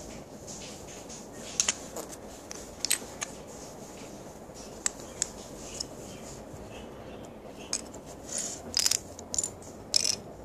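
Plastic Lego bricks clicking and clattering as they are handled: a scatter of short, sharp clicks, coming thicker in the last few seconds.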